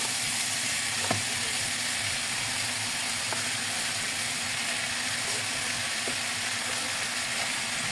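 Ground pork, onion and tomato sizzling steadily in a frying pan, with a faint tick now and then.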